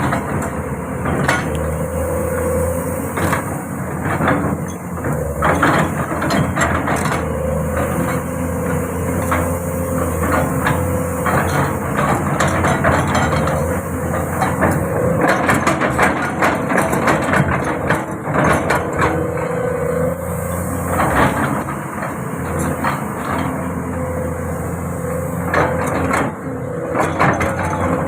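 Hyundai 450 excavator running, its diesel engine a steady low hum under a wavering whine, with frequent metallic clanks and knocks.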